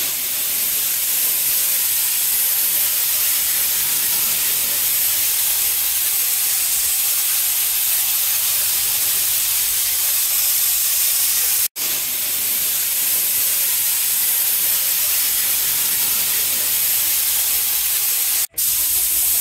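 Spray gun hissing steadily as it sprays varnish onto the boat's hull, cutting out briefly twice, about twelve seconds in and near the end.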